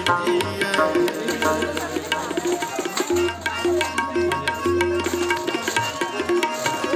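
Background music: Indian music with tabla playing a steady rhythm under held melodic notes.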